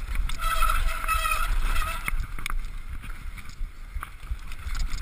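Downhill mountain bike running fast over a dirt trail: a deep wind rumble on the bike-mounted microphone with knocks and rattles from the bike over bumps, and a high pitched buzz from the bike during the first two seconds.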